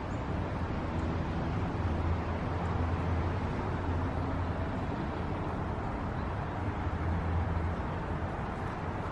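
Steady low rumble with a hiss over it, the background noise of distant road traffic.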